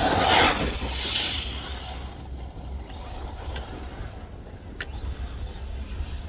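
Arrma Typhon 3S brushless electric RC buggy driving, loudest in the first second and a half, then fainter as it runs on. Two sharp clicks come near the middle.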